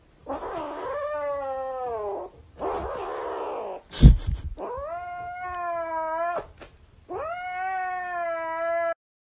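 Kitten giving long, drawn-out yowls, three of them, each held on one pitch, the first sliding down at its end, with a rougher, breathier cry between the first two. A sharp thump about four seconds in is the loudest sound.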